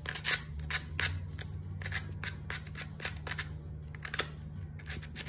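Quick, irregular scraping strokes, several a second, as rust is rubbed off a small metal suspension part by hand. A low steady hum runs underneath.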